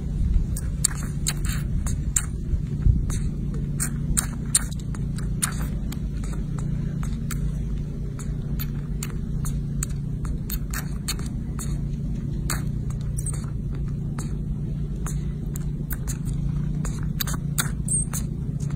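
Baby macaque sucking at a milk bottle, with irregular small clicks and smacks from its mouth on the teat, over a steady low hum.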